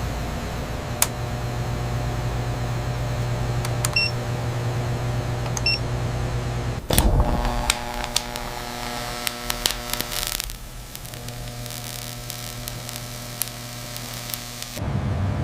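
Steady electrical or machine hum with scattered clicks and two short high beeps about four and six seconds in; the hum changes abruptly about seven and ten seconds in.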